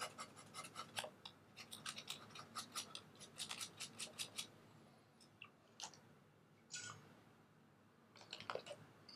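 Small piece of sandpaper scratched in quick short strokes, about four or five a second, on the back of a metal potentiometer casing to rough it up for soldering; the strokes stop about halfway through, leaving a few scattered clicks.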